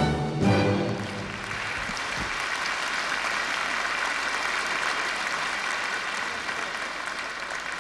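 An orchestra's closing chord ends about a second in, and steady audience applause follows.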